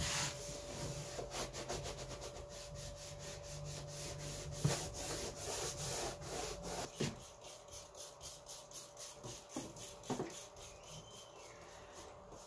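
Scrubbing a windowsill soaked with bleach and Ajax cleanser: fast back-and-forth scrubbing strokes, about four a second, that thin out and grow fainter after about seven seconds.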